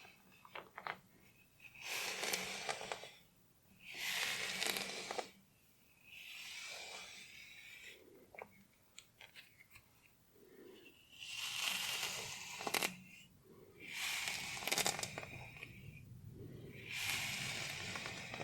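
Hair and scalp being scratched in slow strokes: about six long scratchy passes, each a second or so, with soft crackles and small clicks between them.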